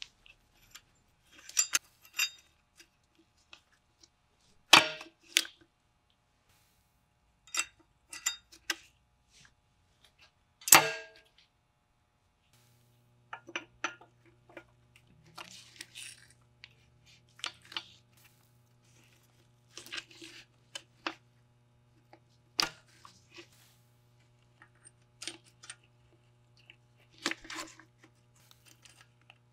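Steel differential parts clinking and clicking as they are handled and fitted into a Chrysler 8.25 open differential carrier: spider gears, thrust washers, cross shaft and its lock bolt. Two louder clanks come in the first half, and a faint low steady hum comes in about halfway.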